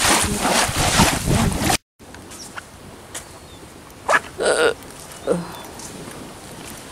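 Wind buffeting the microphone over lapping seawater, cut off abruptly after nearly two seconds. Then a quiet outdoor background with a few short calls about halfway through.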